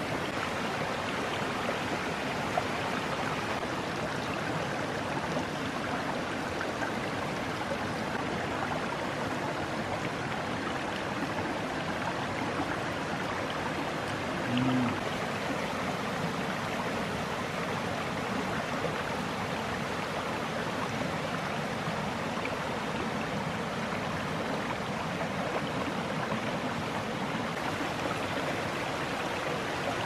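Mountain stream rushing steadily over rocks below a waterfall. A short low-pitched sound comes about halfway through.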